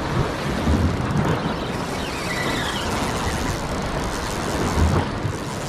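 Steady rushing noise of surf and wind at a rocky shore, with dull low thumps about a second in and again near the end.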